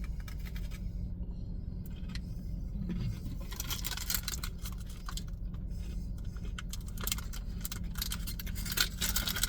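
Plastic cookie package crinkling and rustling as it is handled, denser from a few seconds in, over a steady low hum.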